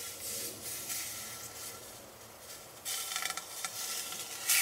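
Liquid propane boiling hard and sizzling around a room-temperature flower pushed down into it, a crackly hiss that grows louder about three seconds in.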